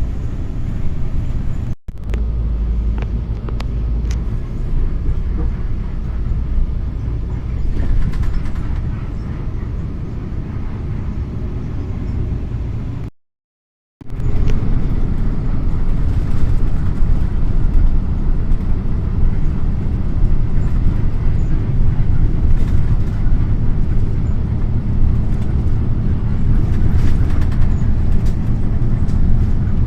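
Car driving along a road, heard from inside: a steady low rumble of engine and tyres, broken by two short dropouts, one about two seconds in and a longer one around thirteen seconds.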